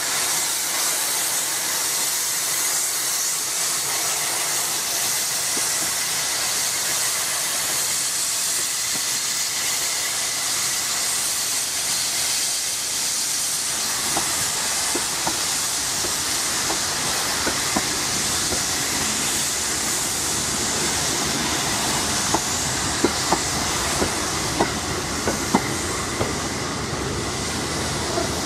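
Steam locomotive pulling away with its cylinder drain cocks open, giving a steady loud hiss of escaping steam. From about halfway through, sharp clicks of the coaches' wheels over rail joints come in, growing more frequent as the carriages roll past.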